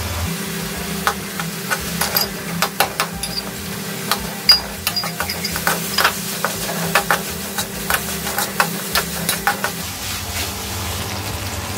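Steel spoon stirring and scraping chopped onions with crushed ginger and garlic in a metal kadai, clinking repeatedly against the pan over a light sizzle of frying oil. The clinking stops about ten seconds in.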